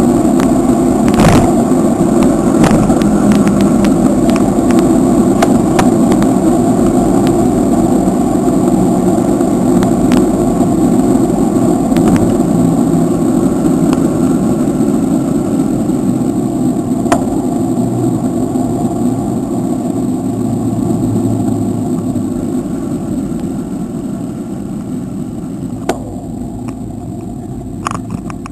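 Wind rushing over the microphone and road rumble from riding a bicycle, with scattered clicks and rattles; it grows quieter over the last ten seconds or so.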